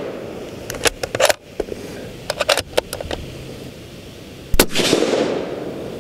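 Sig Cross bolt-action rifle in .308 Winchester: a run of quick metallic clicks from the bolt being worked about a second in and again a second and a half later, then one suppressed rifle shot about four and a half seconds in, ringing out and fading over about a second.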